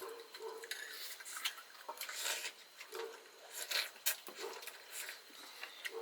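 Quiet eating sounds at a meal of chicken soup and rice: scattered small clicks and short scrapes of cutlery and dishes, with chewing.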